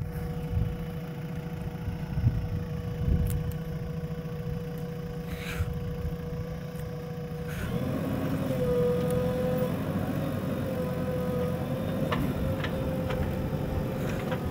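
JCB 3DX backhoe loader's diesel engine running steadily while the machine works its front loader bucket through soil, with a steady humming tone over the engine. About halfway through, the engine note thickens and grows a little louder as it takes more load, and the tone begins to waver.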